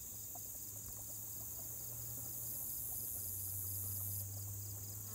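Insects chirping in a pond-side summer chorus: a steady train of short, regular chirps over a continuous high-pitched insect buzz, with no rifle shot.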